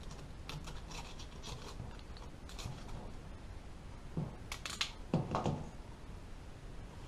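Masking tape being handled and rubbed down onto a plastic box lid: faint scattered rustling and scraping, with a louder run of crackles and a couple of dull bumps about four to five and a half seconds in.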